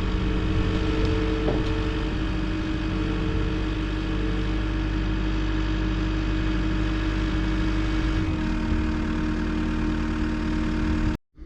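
Diesel engine running steadily, its pitch stepping down slightly about eight seconds in, then cutting off abruptly near the end.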